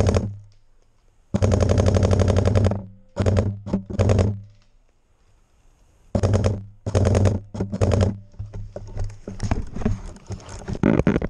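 Airsoft rifle firing on full auto in bursts, fast even rattling shots over a buzzing motor hum: one long burst of about a second and a half, then several short bursts. Near the end only scattered clicks and rustling of handled gear.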